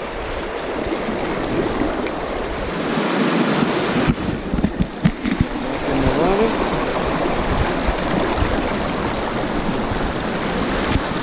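Fast river rapids rushing steadily, with wind buffeting the microphone. A few sudden low knocks come about four to five seconds in.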